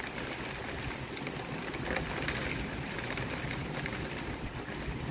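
Heavy rain pouring down steadily: an even hiss with scattered sharp ticks of drops striking nearby surfaces.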